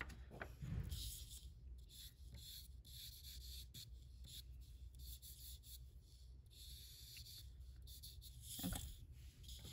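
Faint scratchy rubbing of charcoal and fingertip on construction paper, coming and going in short stretches as shadows are shaded in and blended. One short louder sound near the end.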